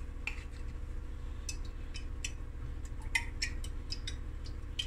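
About ten light clicks and ticks, mostly in the second half, from handling an olive oil bottle while oil is drizzled over raw lamb chops. A steady low hum runs underneath.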